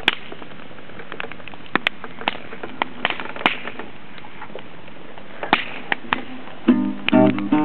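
Campfire crackling, with sharp, irregular pops. Near the end an acoustic guitar starts playing.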